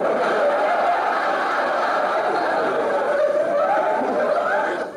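Sitcom laugh track: a dense crowd of audience laughter that comes in suddenly and cuts off just before the end.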